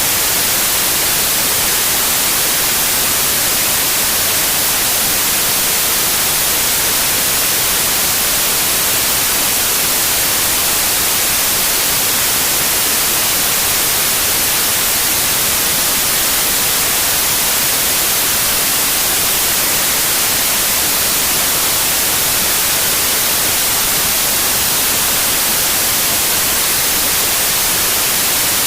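Steady white noise: an even, unchanging hiss, strongest in the highs, with no swells or breaks.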